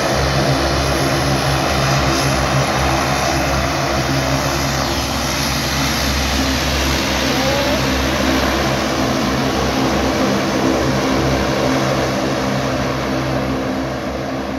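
Twin-turboprop airliner taxiing past with its engines running, a steady, very loud propeller hum of several low tones under a broad turbine hiss, fading slightly near the end as it moves away.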